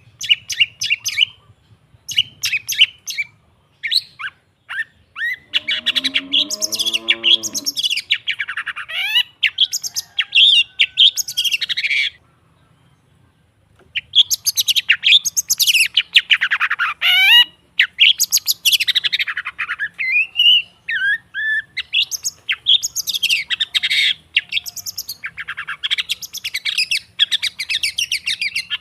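Long-tailed shrike (cendet) song: fast runs of sharp chattering and harsh scratchy notes, with a lower wavering warble about six seconds in and a pause of about two seconds near the middle.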